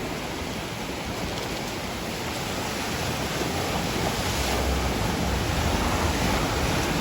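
Steady rushing of a waterfall, an even wash of water noise, with a low rumble of wind on the microphone growing stronger about halfway through.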